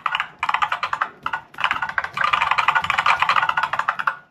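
Recorded IBM Model M buckle-spring keyboard keystrokes, played back through laptop speakers by the BuckleSpring program as someone types fast. The clicks come in quick runs with a couple of short pauses, then one long unbroken run.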